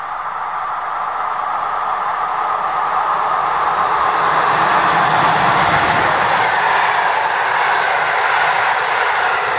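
Passenger train hauled by an electric locomotive approaching and passing close by: the rolling noise of steel wheels on rails grows steadily louder as the locomotive and then the coaches go past.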